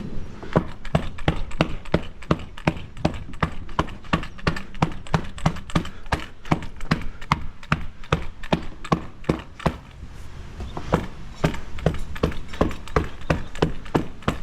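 Rapid, even knocking of a tool striking, about three strikes a second, easing off briefly about ten seconds in and then resuming.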